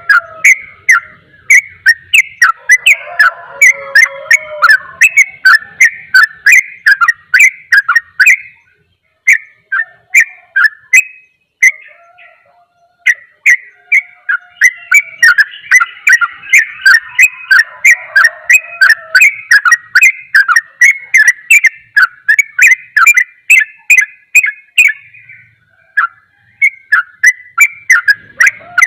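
Yellow-vented bulbul (trucukan) singing a rapid, continuous chattering song of sharp repeated notes, about three a second. The song breaks off briefly twice near the middle, then runs on.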